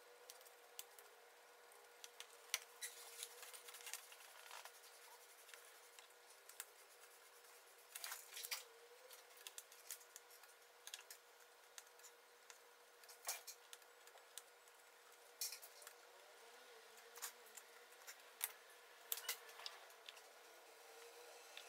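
Faint, scattered small clicks, taps and snips of thin sawn veneer pieces being handled and cut free for a marquetry picture, with a few sharper ones now and then over a faint steady hum.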